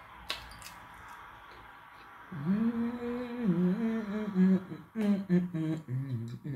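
A woman humming with her mouth closed, starting about two seconds in: long held notes that step up and down in pitch like a short tune. Before it, a faint hiss and one small click.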